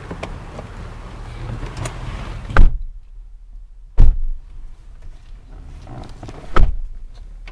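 2005 Chevrolet Avalanche's door slammed shut about two and a half seconds in, cutting off the outdoor noise. Two more heavy thuds follow inside the cab, the first about a second and a half later and the second near the end.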